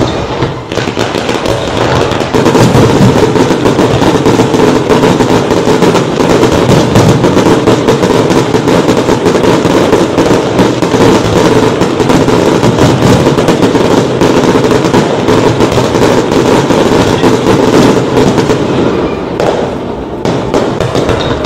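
Fireworks going off in a dense, continuous barrage of bangs and crackles that eases off near the end.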